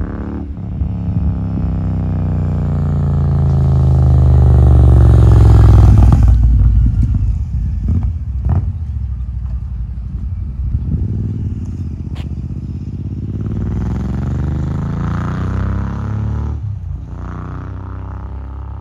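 Royal Enfield Super Meteor 650's parallel-twin engine through a Rhino Racing aftermarket exhaust in a flyby. The exhaust note builds as the bike approaches, is loudest about six seconds in as it passes, then carries on as it pulls away. The note breaks briefly a few times between rising runs of revs.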